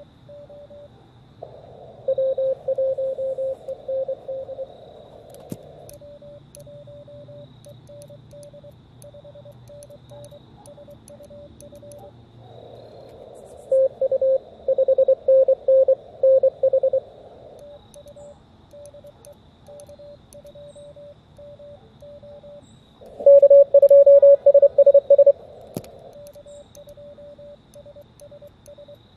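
Morse code (CW) on the 40-meter band from an Elecraft KX2 transceiver. A quieter keyed sidetone plays as the operator sends. It alternates three times with louder stretches of received Morse from other stations, keyed tones in a band of hiss.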